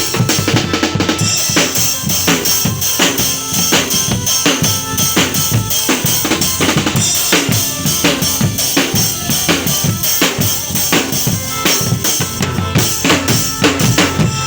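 Drum-led music with a fast, steady beat of repeated strikes.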